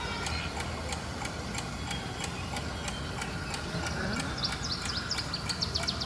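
Animatronic clock tower ticking steadily and evenly, over a low lobby murmur. From about two-thirds of the way in, short high chirps like birdsong join the ticking.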